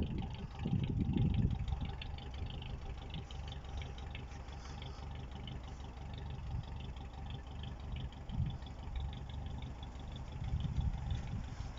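A steady low engine rumble, like a motor vehicle running, with faint small ticks over it.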